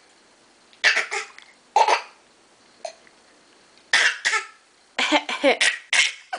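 A baby or toddler giving a string of short coughs in small groups with quiet pauses between, the last group near the end coming faster.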